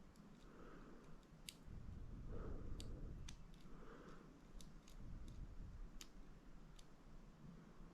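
Faint, irregular small metallic clicks of a lock pick working the pin stack of a Master Lock 141 padlock under tension, with a soft handling rustle about two seconds in.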